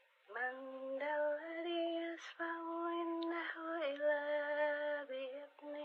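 A woman's voice chanting Quran recitation in long held notes, stepping between a few pitches, with a short break about two and a half seconds in.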